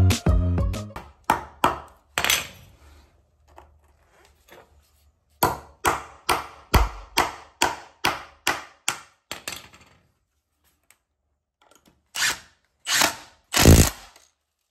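Hammer blows on a treated timber batten, a run of about ten quick strikes a few seconds in, tapping screws into the wood. Near the end a cordless impact driver drives a screw home in three short, loud bursts.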